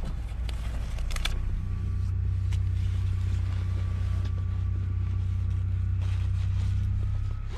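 Car engine idling steadily, heard from inside the cabin, with a few light clicks.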